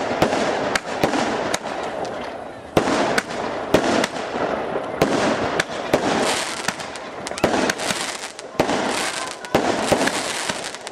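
Fireworks display going off: a rapid, irregular run of sharp bangs, several a second, over a continuous crackling hiss from the bursting shells.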